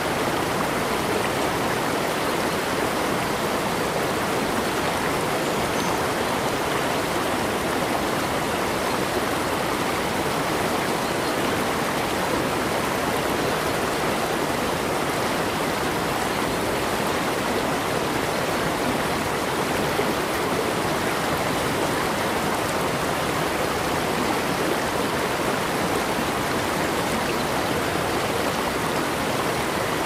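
Water of a flowing stream running steadily, an even rushing wash with no pauses or changes.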